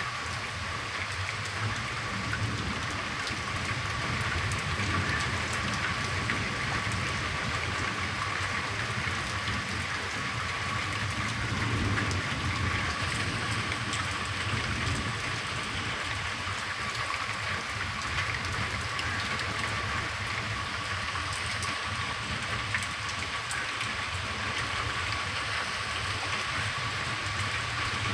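Heavy rain falling steadily on tree foliage and a paved yard, an even hiss.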